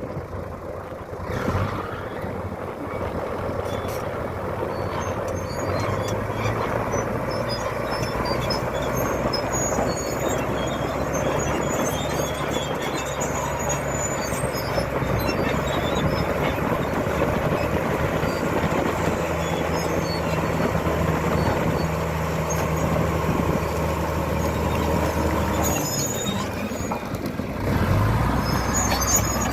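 Bulldozer's diesel engine running steadily under load. Near the end its note drops away briefly, then picks up louder again.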